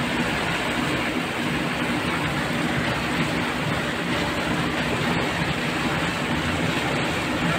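Steady drone of a river cruise boat's engine under way, with a low hum over the rush of water along the hull.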